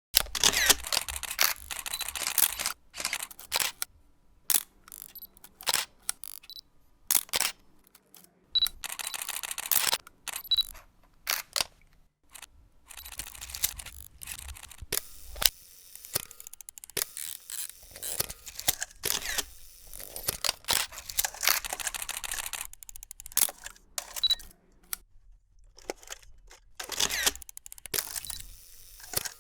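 Mechanical clicking and clattering sound effects made for a film punch-hole overlay, coming in irregular clusters of sharp clicks and noisy bursts with short gaps between them.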